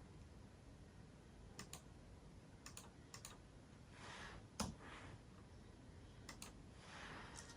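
Near silence broken by faint, scattered clicks like computer keyboard keystrokes, some in quick pairs, with a slightly louder one midway. Two soft swells of hiss come around the middle and near the end.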